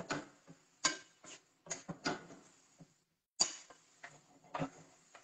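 A cooking utensil knocking and scraping against a frying pan as zucchini are stirred and turned, in irregular strokes with short pauses between them.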